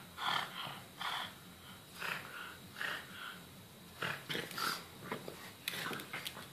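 Pug snorting and grunting in short bursts about once a second while play-fighting with a cat. In the last couple of seconds it turns into quicker scuffling and clicking as the two tussle on a tile floor.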